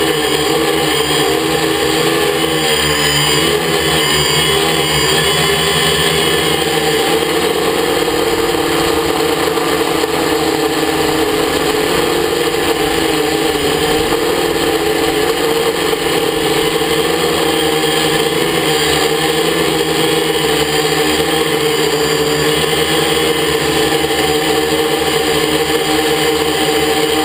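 Quadcopter's electric motors and propellers running steadily in flight: a dense whine of several tones at once, whose pitches wobble at times as the motors adjust.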